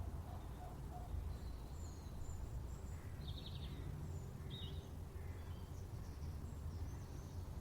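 Village garden ambience: a steady low background rumble with faint, scattered bird chirps. Two short trilled chirps stand out about three and four and a half seconds in.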